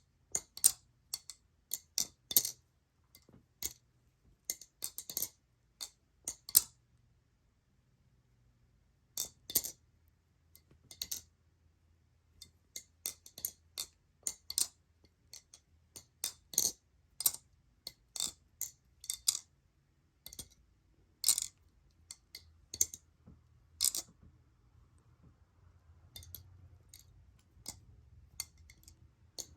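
Titanium-handled PDN balisong (butterfly knife) being flipped: irregular runs of sharp metallic clicks and clacks as the handles swing around and knock against the blade and pins, with short pauses between runs.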